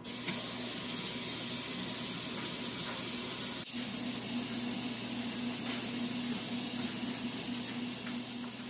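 Kitchen faucet turned on, water running hard into a stainless steel sink as a steady hiss that starts suddenly.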